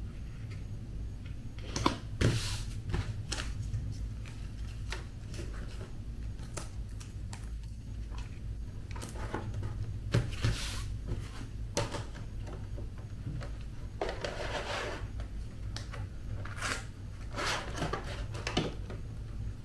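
Hand-handling sounds of cardstock being laid onto a Cricut cutting mat: scattered light taps and clicks with a few short rustles of paper, over a low steady hum.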